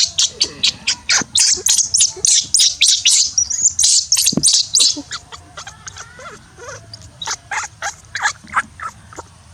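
Baby monkey giving a rapid series of shrill, high-pitched squeaks, about four a second, for the first five seconds, then softer, lower chirps.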